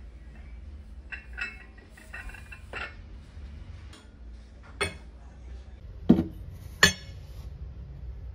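Ceramic mugs, a teacup and a glass cup clinking and knocking as they are set down on a cabinet shelf: a run of light clinks, then three sharper knocks in the second half, the last two the loudest.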